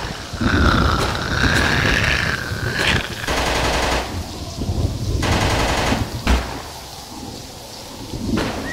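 Machine-gun fire sound effects: two rapid bursts, each about a second long, around three and five seconds in, over a low rumble. They follow a long wavering high cry at the start.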